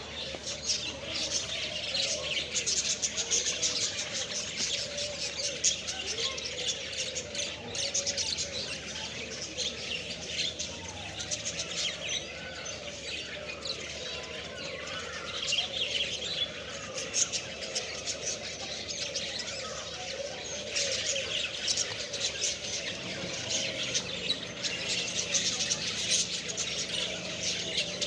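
A chorus of many small cage birds chirping and chattering together without a break in an aviary.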